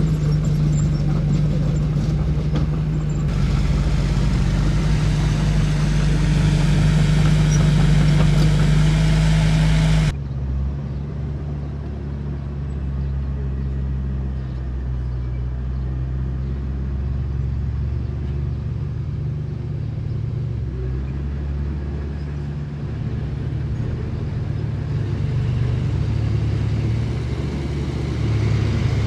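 Diesel engines of heavy earthmoving machinery running steadily, with a deep engine hum. About ten seconds in the sound changes abruptly to a somewhat quieter, lower engine sound.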